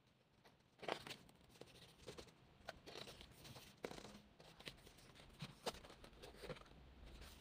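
Faint rustling and soft flicks of the glossy pages of a K-pop album photobook being turned and handled, with a few sharper paper snaps, the clearest about a second in and again near the middle.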